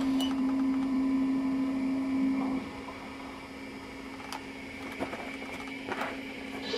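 Electric motor and gears of an LGB garden-scale model locomotive whining at a steady pitch as the train runs, louder for the first two and a half seconds and then softer. A few light clicks of the wheels on the track come near the end.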